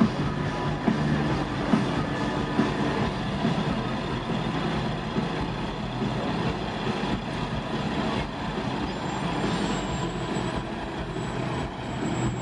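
Old bus running: a steady low engine hum with rattles and small knocks.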